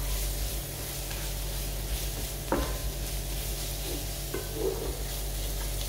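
Wooden spatula stirring shredded cooked chicken through onion masala in a non-stick frying pan, with a few short scrapes against the pan over a steady sizzle of frying.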